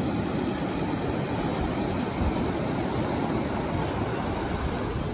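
Sea surf washing onto the beach, a steady rushing noise.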